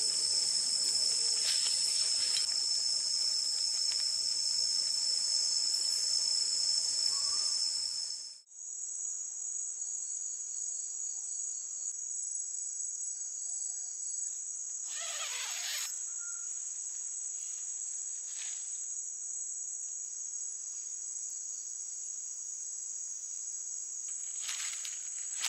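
A night chorus of insects such as crickets, a steady high-pitched trill. About eight seconds in it drops out abruptly and comes back at a slightly different pitch, and there is a brief scuffing noise about halfway through.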